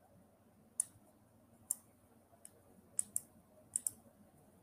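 Irregular sharp clicks of computer input at a desk, about seven in all, two of them in quick pairs, over faint room hiss.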